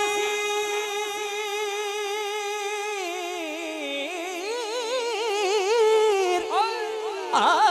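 A male naat reciter singing unaccompanied by instruments: he holds one long note for about three seconds, then breaks into a wavering, ornamented run before starting a new phrase near the end.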